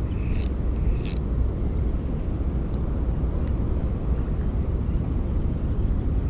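Steady low rumble of wind buffeting the microphone, with two short high hissing sounds about half a second and a second in.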